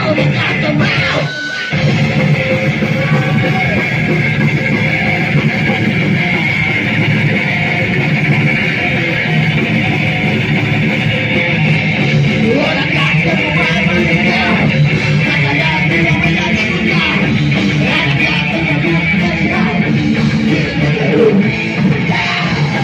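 Metal band playing live: distorted electric guitars over drums through a loud club PA, with a short break in the music about a second and a half in.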